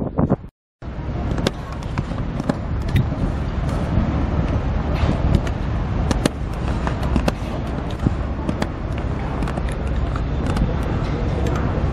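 Wind buffeting the microphone, a steady rumble with scattered small clicks and taps through it; it cuts out completely for a moment just under a second in.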